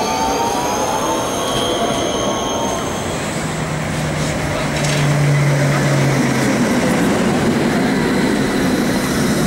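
Tram wheels squealing on the rails as a modern low-floor tram passes; the squeal fades out about three seconds in. A Tatra T3 tram then runs past close by, with a steady low hum for a few seconds over the rumble of wheels and street noise.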